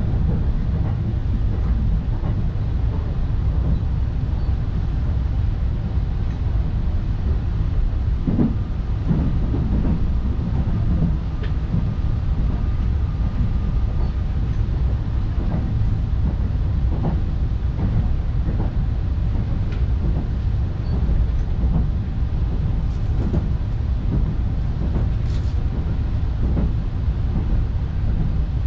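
Steady low rumble of an E261 series electric express train running along the line, heard from inside the passenger car, with a few light knocks here and there from the wheels and track.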